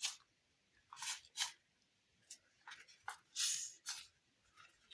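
Faint, short airy hisses of a hand-squeezed squishy (silk clay over a sponge core), as air is pushed in and out through holes gouged in its base; about eight in a row, one a little longer near the middle.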